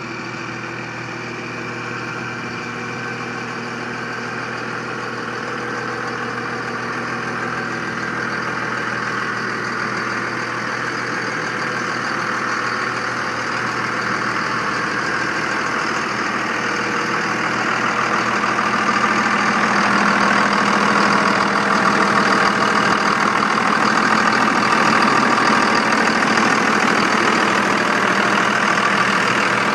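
Cummins 5.9-litre inline-six turbo diesel of a 2000 Dodge Ram 3500 idling steadily, growing louder over the second half as the open engine bay comes close.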